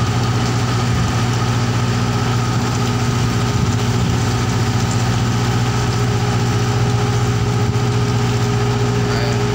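A large engine running steadily at a constant speed, giving a loud, unchanging low drone. It is machinery working on the deck of a bulk cargo ship during coal loading.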